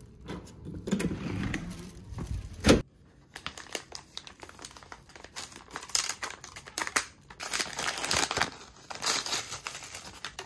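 A single loud thump a little under three seconds in, then green paper wrapping on a food package crinkling and tearing in irregular bursts as it is unwrapped by hand.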